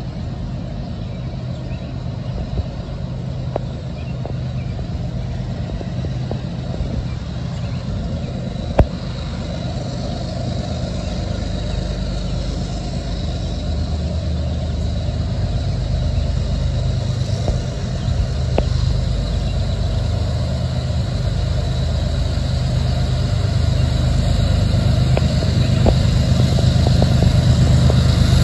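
Diesel locomotives working hard at high throttle to lug a heavy loaded coal train up a slight incline: a steady, low engine drone that grows gradually louder as the train approaches.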